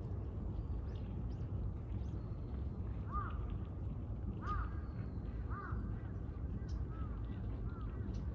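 A crow cawing over and over, about once a second from three seconds in, the later caws fainter, with small birds chirping high and a steady low rumble behind.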